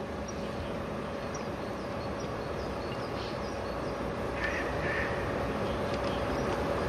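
Outdoor course ambience: birds calling, short high chirps again and again, with two harsher calls about four and a half and five seconds in, over a steady background hiss.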